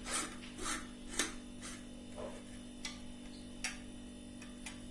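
Light clicks from a stainless steel gun-type murukku press as its parts are handled and fitted together, several about half a second apart at first, then more spread out.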